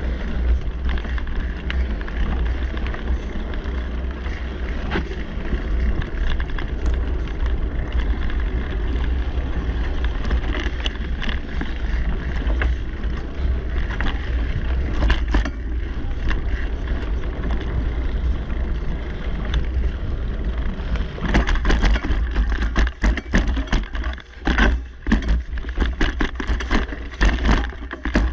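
Mountain bike riding fast on a dirt singletrack: steady wind rumble on the microphone over the tyres and the bike's rattle. In the last several seconds a quick run of sharp knocks and clatters as the bike jolts over rough, rocky ground.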